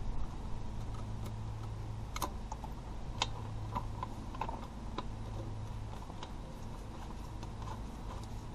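Scattered light clicks and ticks as a scooter's engine drain plug is unscrewed by a gloved hand, over a low background hum.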